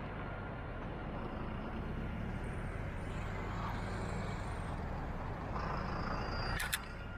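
Alstom Citadis 302 tram approaching on the track, a low rumble that slowly grows louder. A sharp double click sounds near the end.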